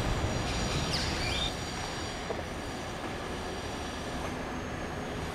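Outdoor garden ambience: a steady low rumble and hiss with thin, high-pitched steady tones, and a short falling squeal about a second in. It drops a little in loudness shortly after.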